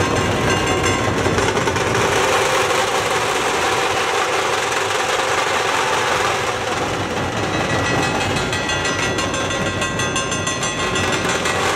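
A dhol-tasha band playing: many large dhol barrel drums beaten with sticks in a dense, unbroken, loud rhythm.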